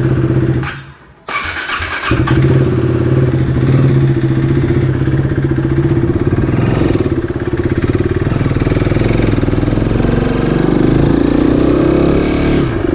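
Motorcycle engine running as the bike pulls away and climbs a narrow lane, with a brief drop in sound about a second in. The engine note rises near the end as the rider accelerates.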